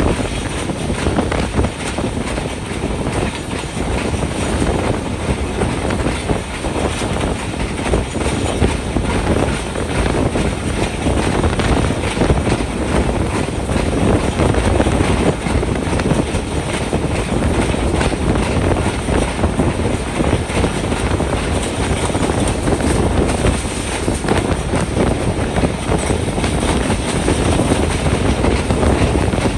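Passenger train in motion, heard from one of its coaches: the steady running noise of steel wheels on the rails.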